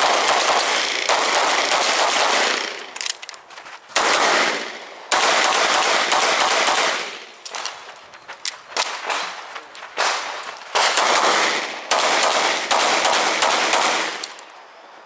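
Competition handgun fired in several strings of rapid shots, separated by short pauses as the shooter moves between target arrays, with each shot ringing off the range walls.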